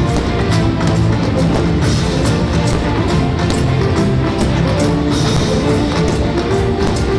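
Loud rock music with electric guitar and a steady drum beat, played over the deck party's sound system.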